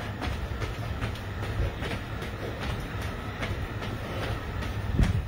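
Sneakers landing on a tiled floor during jumping jacks, giving a quick, even run of thuds about three a second over a steady low hum, with one heavier thump near the end.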